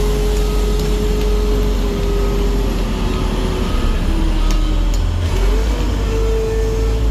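Asphalt paving machine running, a steady heavy engine rumble with a whining tone that slides lower and then rises again near the end, and a couple of sharp clicks about four and a half seconds in.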